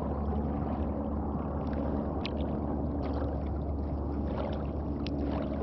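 Steady low motor hum, with a couple of faint clicks.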